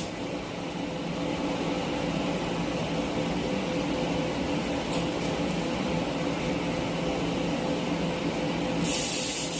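Steady electrical hum of an idling TIG welding machine and its cooling fan. A brief hiss comes about five seconds in, and a louder steady hiss starts near the end.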